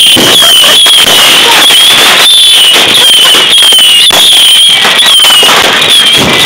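Ground firework barrage going off, with dense, very loud crackling and popping from its shots and sparks. A high wavering whistle repeats about twice a second through it.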